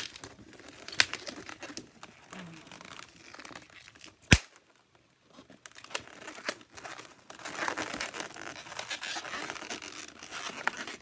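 Clear latex twisting balloon being twisted by hand into small bubbles: latex rubbing against latex with scattered sharp clicks, one loud snap about four seconds in, and a longer spell of rubbing in the second half.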